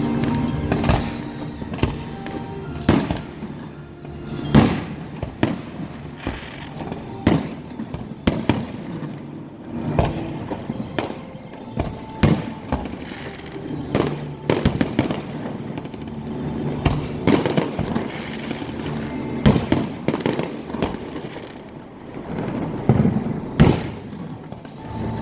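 Fireworks display: a string of sharp bangs at irregular intervals, a few each second at the busiest, with music playing underneath.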